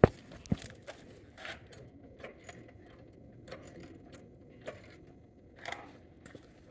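Car jack being worked to raise the mower higher: a sharp metal click at the start and another about half a second later, then fainter clicks and clinks about once a second.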